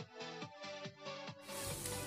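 Electronic background music with a steady beat, about four strokes a second. About one and a half seconds in, a steady hiss comes in underneath: besan and vegetable batter cooking and being stirred with a wooden spatula in a hot pan.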